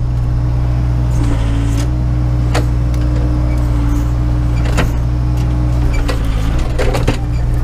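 Case 580 Super K backhoe's diesel engine running steadily, heard from inside the cab, its note dipping briefly twice as the backhoe works. Occasional sharp knocks come from the boom and bucket digging in frozen ground.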